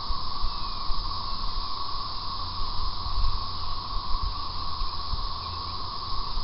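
Wind buffeting the camera's microphone: an uneven low rumble under a steady hiss.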